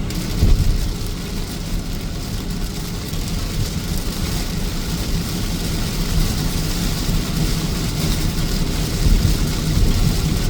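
Steady low rumble of a car driving, heard from inside the cabin, with a constant hiss above it.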